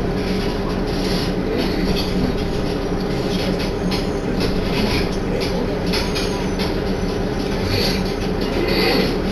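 Inside a Tenryu Hamanako Railroad diesel railcar running along the line: a steady engine hum under the rumble of the wheels on the rails.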